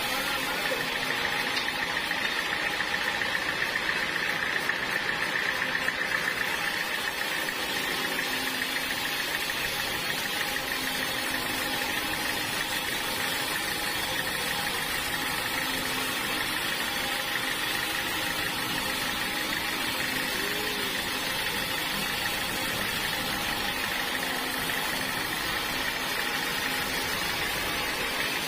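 Sawmill machinery running steadily, with a steady high whine that is strongest in the first few seconds.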